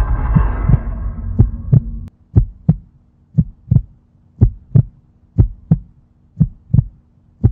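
A loud, noisy swell dies away over the first two seconds. What is left is a heartbeat sound effect: a double thump about once a second over a faint steady hum.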